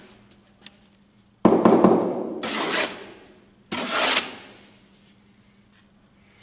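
Brick trowel scraping and slicing wet compo mortar across a mortar board: three rough scrapes, the first about a second and a half in and the last about four seconds in.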